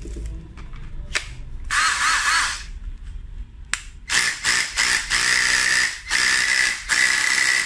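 INGCO 20V cordless SDS rotary hammer drill with a brushed motor, run free with no bit load: one short burst, then from about four seconds in a longer run broken by brief trigger releases, the motor whining under the hammer mechanism's rattle.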